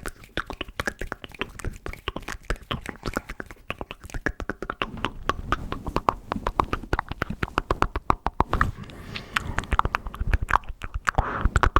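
Close-up ASMR mouth sounds: rapid wet clicks and pops made with the tongue and lips right at the microphone, many a second, in uneven runs.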